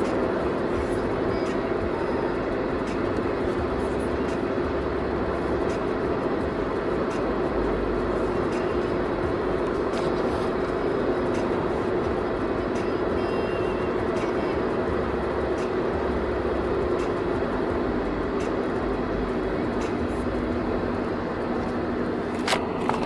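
Steady vehicle noise: a constant rumble with a low hum. A single sharp click comes near the end.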